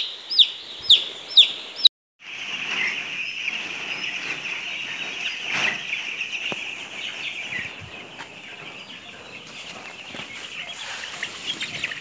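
A single chick peeping loudly and regularly, about two sharp falling peeps a second. After a brief break about two seconds in, a large flock of young broiler chicks cheeping all together in a dense, steady chorus.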